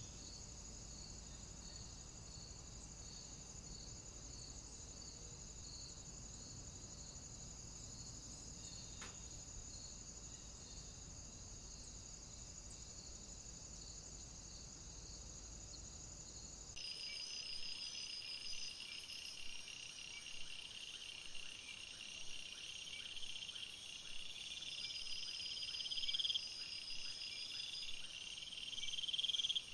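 Insect chorus: a steady high trill with faint regular chirps. About 17 seconds in it changes abruptly to a louder night chorus of high, pulsing calls that swell about once a second.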